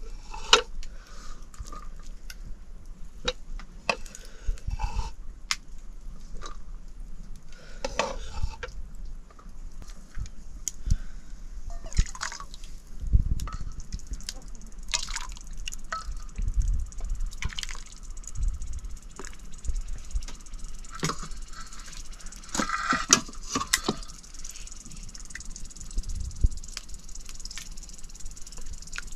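Cooking in a pot: a metal utensil knocks and clinks against the cookware at irregular moments, among liquid sounds, with a sizzling hiss growing stronger in the last third.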